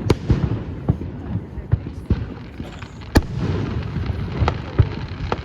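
Fireworks display: an irregular run of sharp bangs and pops over a low rumbling background, the loudest bang about three seconds in.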